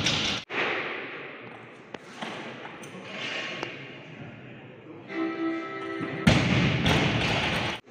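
A loaded barbell with bumper plates dropped onto a wooden lifting platform, crashing and rattling, twice: once at the start and again for over a second starting about six seconds in. Music plays underneath.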